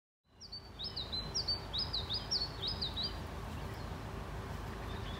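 A songbird singing a quick run of repeated high two-part notes, about three a second, which stops about three seconds in. Steady background noise runs underneath.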